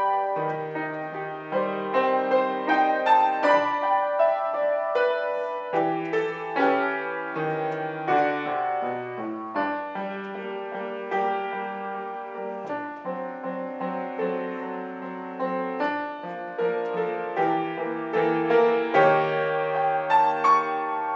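Grand piano played solo, a flowing piece of melody over sustained chords, louder at the start and again near the end, softer through the middle.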